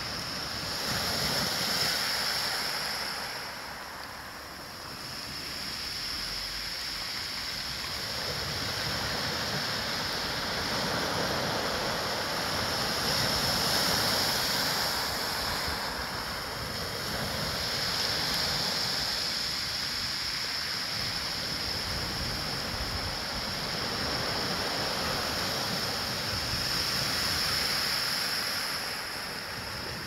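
Small waves breaking and washing up a pebble beach. The surf rises and falls in swells every several seconds as each wave comes in and draws back.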